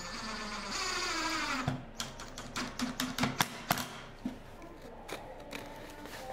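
Cordless drill-driver driving a screw into plywood: the motor's whine falls in pitch over about a second and a half as the screw bites in, followed by a run of sharp clicks for about two seconds.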